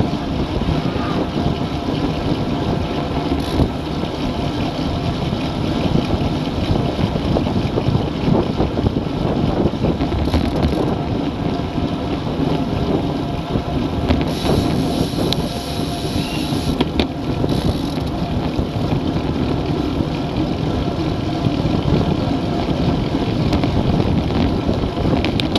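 Wind rushing over the microphone of a camera mounted on a road bike riding at about 38 km/h: a steady, dense, loud rumble.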